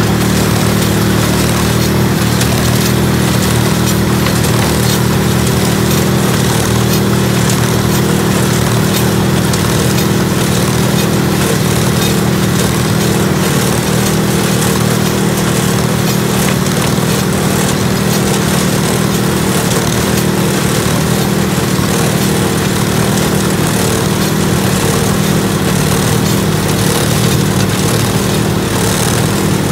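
A Wisconsin-engined New Holland Hayliner 69 small square baler running steadily while its pickup takes in a windrow of hay, with the engine sound even and unchanging.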